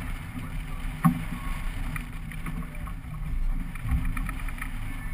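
Outboard motors of a small fishing boat running steadily, a low rumble with some wind and water noise, and a sharp knock on the boat about a second in.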